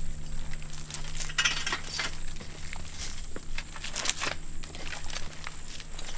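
Irregular crackling and rustling with scattered light clicks, as a hunter handles a metal climbing tree stand among dry pine straw and palmetto.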